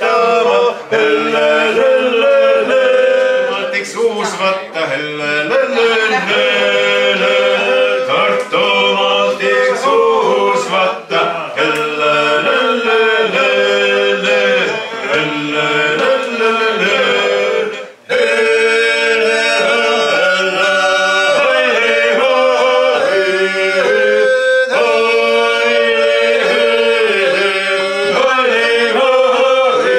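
Three men singing a Seto folk song unaccompanied, in several voice parts over a held ground note, with a brief break a little past halfway.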